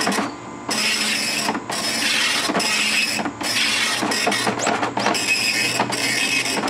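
Okidata Pacemark 3410 9-pin wide-carriage dot matrix printer printing its built-in self-test. The impact print head makes a loud rasping buzz as it sweeps across each line, broken by a short pause roughly once a second as the paper feeds to the next line.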